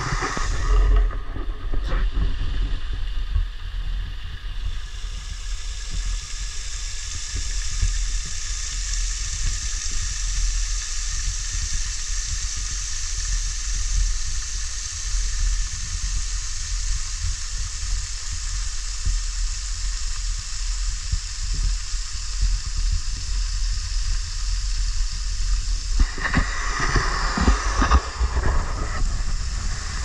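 Water from a small winter waterfall spilling over a dam wall into a pool, a steady rushing hiss, with an uneven low rumble underneath.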